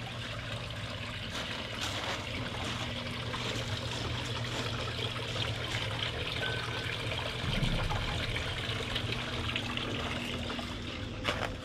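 Water trickling steadily over a small stacked-rock patio fountain.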